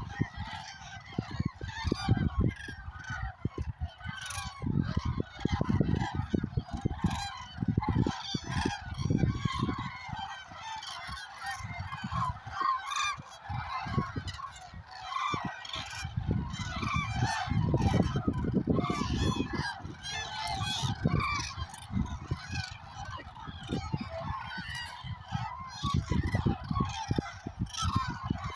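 A big flock of geese and cranes calling at once: many overlapping honks and calls, continuous with no break.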